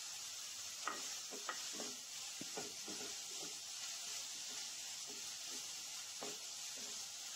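Chopped onions sizzling in hot coconut oil in a nonstick pan as they sauté until soft, with a wooden spatula stirring and scraping across the pan in short strokes, several in the first few seconds and one more past the middle.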